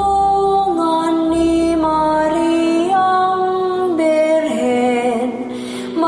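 Slow music with a woman singing a melody in long held notes that step smoothly from one pitch to the next.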